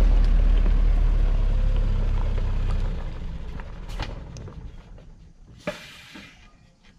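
Mercedes Vario expedition truck's diesel engine running as the truck passes close on a gravel track and pulls away, its low hum fading steadily from about three seconds in. A few faint sharp ticks are heard as it dies away.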